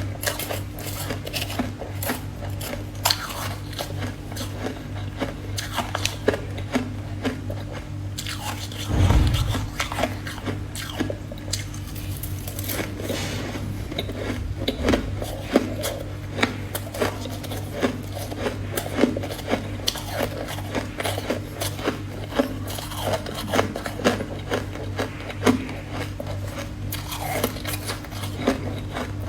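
Close-up crunching of ice being bitten and chewed: a dense run of sharp, brittle crunches, with one heavier low thump about nine seconds in. A steady low hum sits underneath.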